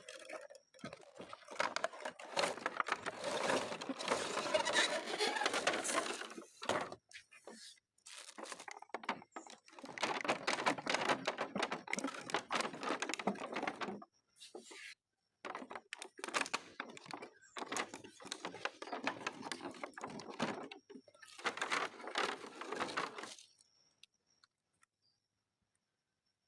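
Toy packaging being handled and opened, crinkling and tearing in bursts a few seconds long with short pauses between. It stops about two seconds before the end.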